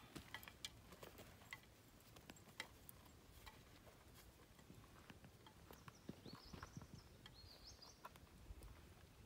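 Near silence with faint, scattered clicks and knocks, and a faint wavering high tone from about six to eight seconds in.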